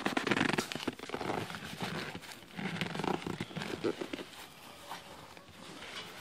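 A motorcycle seat cover being pulled and stretched by hand over the seat, crinkling and rustling with many small crackles. It is busiest for the first four seconds, then quieter.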